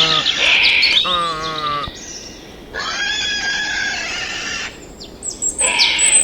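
Birds chirping and tweeting, with a wavering, many-toned call lasting about a second, starting about a second in.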